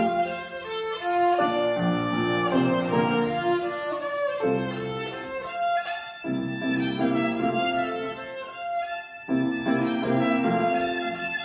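Violin playing a melody with upright piano accompaniment, bowed notes moving over piano chords in short phrases.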